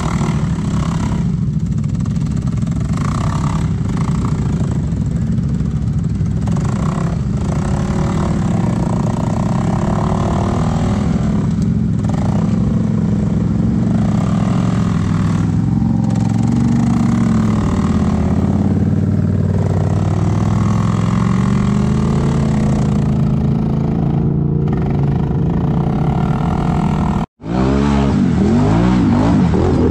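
Can-Am ATV engine running hard through mud, its pitch rising and falling as the throttle is worked. It breaks off abruptly for an instant near the end, then comes back revving with quick swings in pitch.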